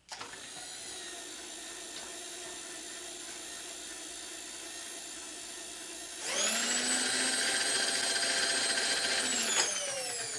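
A small electric motor whining steadily. About six seconds in it speeds up, higher and louder, holds for about three seconds, then winds down in a falling whine near the end.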